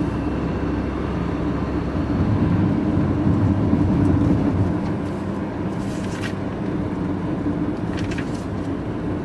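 Lorry engine running with a steady low drone and road noise, growing a little louder about two seconds in and easing back after about five seconds.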